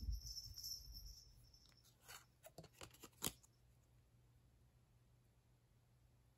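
Faint handling of a stack of trading cards: card stock sliding and rubbing together for about a second and a half, then a few soft clicks, then near silence.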